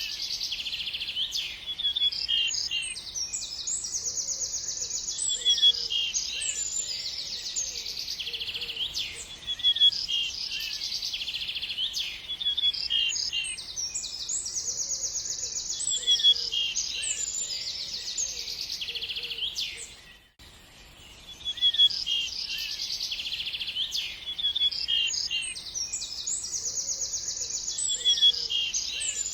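Small birds chirping and twittering: quick high calls, short sweeping notes and rapid buzzy trills, overlapping continuously. The sound drops out briefly about twenty seconds in, then the same sequence of calls starts again.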